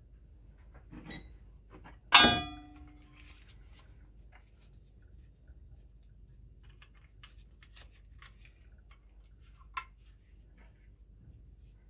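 Metal first-aid tin and its hinged lid being handled on a wooden table. A light metallic ping about a second in, then a loud ringing clang of the tin's metal about two seconds in. Small clicks and rattles follow as the lid and loose nuts are moved, with one sharp click near the end.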